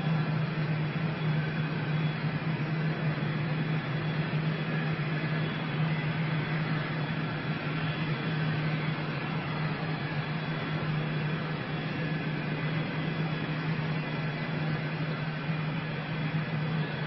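Steady machine drone, a constant low hum with an even hiss over it, unchanging throughout.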